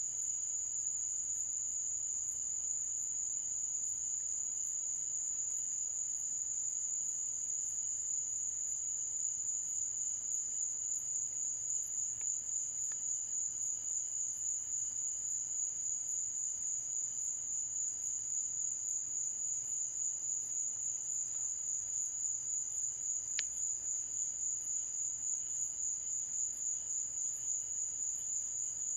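Night insects trilling in one steady, high, unbroken tone, with a fainter regular pulsing above it.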